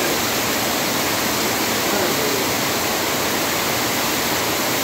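Heavy rain pouring onto dense tree foliage: a steady, loud, even hiss of rain.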